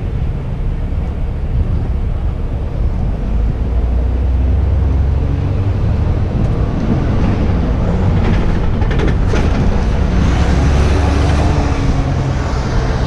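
Road traffic passing close by: a heavy vehicle's engine rumbling, swelling twice, with a growing hiss of tyres and engine near the end.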